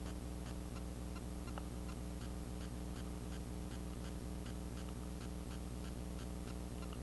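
Steady run of light ticks, about two to three a second, over a constant low hum.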